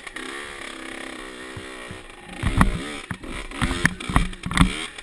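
Suzuki RM65 two-stroke pit bike engine being ridden, revving up and down. The engine runs fairly steady for the first two seconds, then gets louder from about two and a half seconds in, with quick rises and falls in pitch and sharp knocks.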